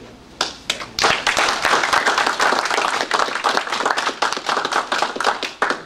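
Audience applauding: a few scattered claps, then full applause from about a second in, which stops fairly abruptly near the end.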